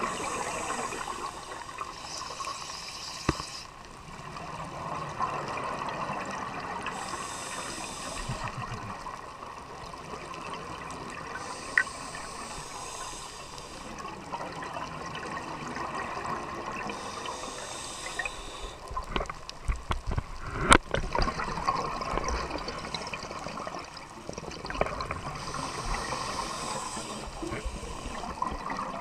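Scuba regulator breathing underwater: five separate bursts of exhaled bubbles, each lasting one to three seconds, over a steady underwater hiss. A quick run of clicks and knocks comes about two-thirds of the way in.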